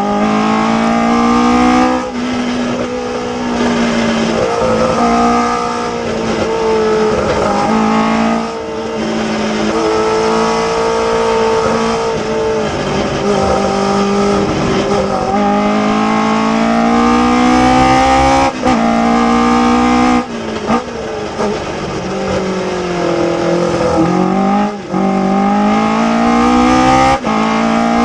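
Onboard sound of a 1960s Ginetta G16 sports racer's engine at racing speed, its revs climbing under throttle and dropping sharply at gear changes and braking for corners, several times over. Near the end the revs climb steadily through the gears as the car accelerates down the straight.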